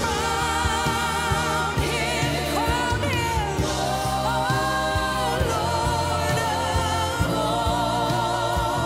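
Live gospel worship music: a woman singing lead with vibrato, backed by other singers and a band with bass and drums.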